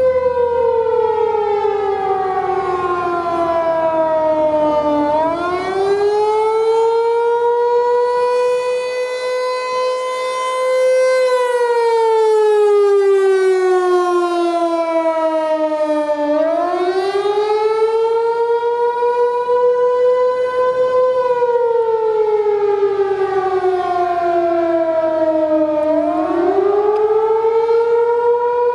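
Thunderbolt T-128 outdoor warning siren sounding the attack signal: one loud wailing tone that slides slowly down, climbs back up, holds briefly, then falls again, repeating about every ten seconds.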